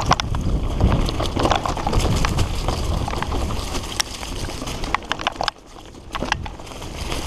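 Fully rigid singlespeed mountain bike (Redline Monocog) running fast down a dirt singletrack: rolling tyre noise with a steady rattle of clicks and knocks as the unsuspended bike bounces over the bumps, briefly quieter about five and a half seconds in.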